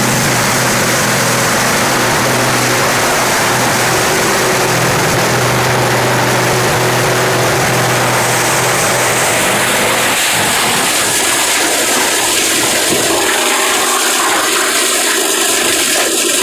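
Large industrial wood chipper running, a loud steady rushing noise over a low motor hum. The hum drops out about ten seconds in, leaving the rushing noise.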